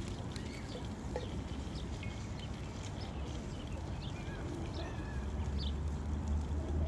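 Outdoor ambience: scattered short bird chirps over a steady low rumble of wind or distant traffic, the rumble growing louder near the end.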